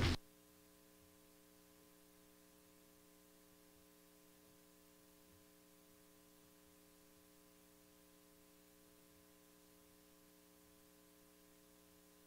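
Near silence: a faint, steady electrical hum in the sound system.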